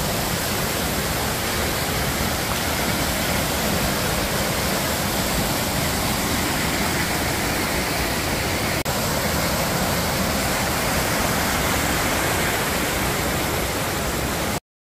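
Mountain creek rushing over boulders: a loud, steady wash of white water. It drops out for an instant about nine seconds in and cuts off suddenly just before the end.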